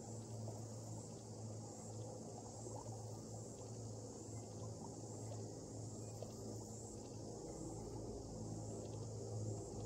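Faint, steady high-pitched chorus of insects from bush, over a steady low hum.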